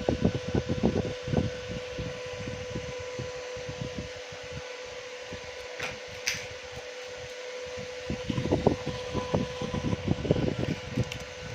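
Steady whir of a fan with a constant hum, under irregular low knocks and handling bumps at the start and again from about eight seconds in, and a couple of sharp clicks about six seconds in.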